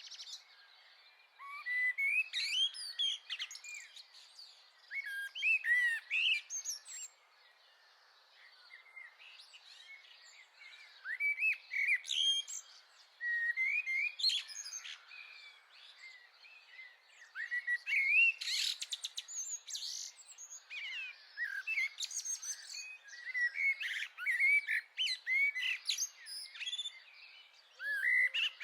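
Common blackbird singing: fluting, warbling phrases a second or two long, often ending in a higher squeaky flourish, repeated about every few seconds with short pauses between. Other birds chirp faintly behind it.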